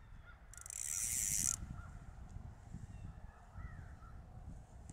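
Birds calling in the distance, a string of short calls in the first two seconds and another a little past three seconds, over a low rumble of wind on the microphone. A loud hiss cuts in about half a second in and lasts about a second.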